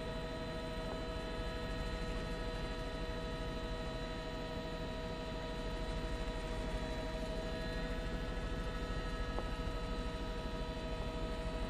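News helicopter cabin noise heard through the reporter's headset microphone: a steady hum made of several fixed tones over a low, fast, even throb.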